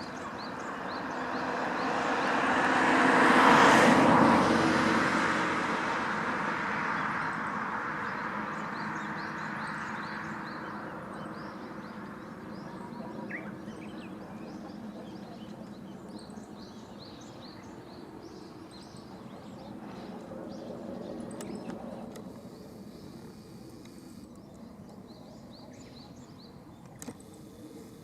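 Outdoor traffic noise from a passing vehicle swells to a peak about four seconds in and fades slowly, and a fainter one passes later. Small birds chirp throughout.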